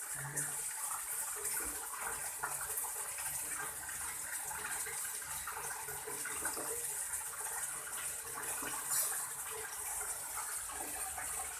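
Water running steadily from a tap, with small splashes and knocks.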